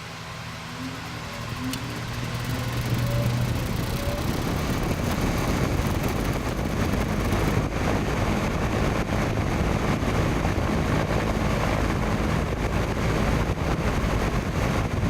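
Vintage AMC metal box fan, model 10-2T-4 and freshly oiled, starting up on high speed. The motor hums and a rising whine climbs over the first few seconds as the blades spin up, then it settles into a steady rush of moving air.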